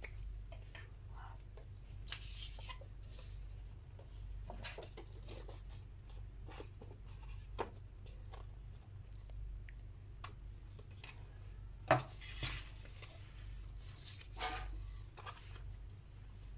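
Glue stick rubbed along paper tabs while the paper walls are handled and pressed together: scattered rustles, scrapes and light taps, with one sharp click about twelve seconds in, over a low steady hum.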